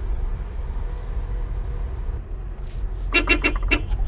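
Suzuki Carry kei truck's engine and road noise running low and steady in the cab, with a quick run of about five short toots on the horn about three seconds in.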